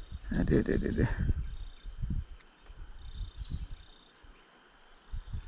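Steady high-pitched drone of insects, with low irregular knocks and rustles as hands handle a giant freshwater prawn and fishing line.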